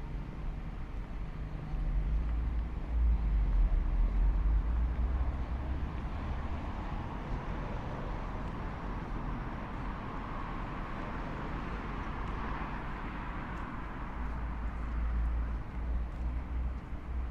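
City street traffic: vehicles passing on the avenue, a continuous low rumble that swells louder about two seconds in and again near the end, with tyre hiss rising and fading in the middle.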